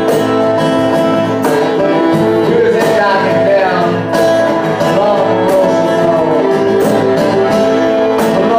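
A small live band playing a folk-style tune: accordion holding sustained notes over acoustic and electric guitar, with a cajon beat.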